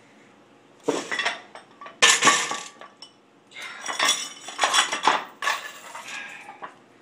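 Metal weight plates clanking and clinking against each other and a plate rack, in several bursts of clatter: near 1 second in, around 2 seconds, and a longer run from about 3.5 to 6.5 seconds in.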